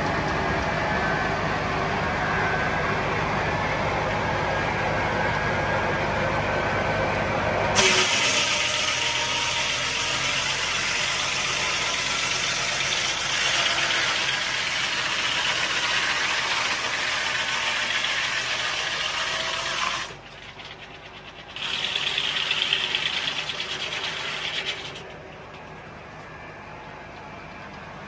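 Ford 4000 tractor driving a Foley Belsaw circular sawmill through a big dried oak log, on a cut the owner calls too much for the little Ford. The tractor hums steadily at first. About eight seconds in, a loud high hiss of the blade in the wood takes over. It breaks off briefly, comes back for a few seconds, then drops to a quieter steady run near the end.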